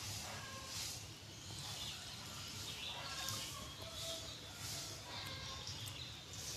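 Outdoor ambience by a small stream: a soft hiss that pulses about once every 0.8 seconds, with a few faint, short bird chirps.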